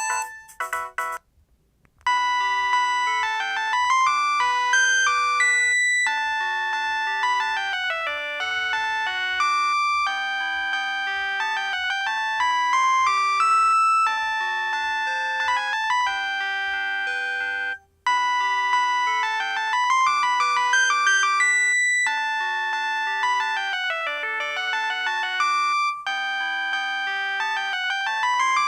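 LG KP105 mobile phone playing a polyphonic ringtone: synthesized melody with fast rising and falling arpeggio runs over a repeating bass line. The previous tone cuts off at the start, and after a brief pause the new ringtone begins about two seconds in, with a short break about eighteen seconds in before it goes on.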